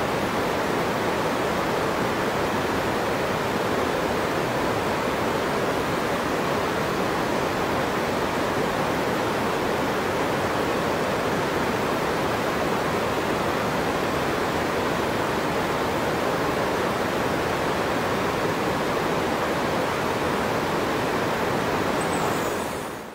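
Steady rushing of water, an even hiss and rumble like a river or waterfall, fading out near the end.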